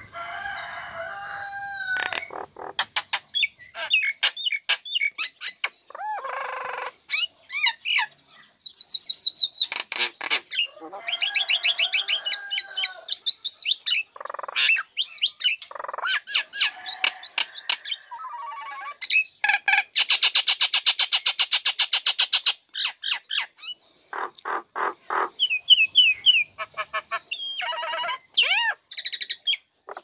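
Female myna (jalak nias) singing energetically: a long, varied string of whistles, quick runs of clicks and harsh chattering notes, with a longer buzzy rattle about two-thirds of the way through.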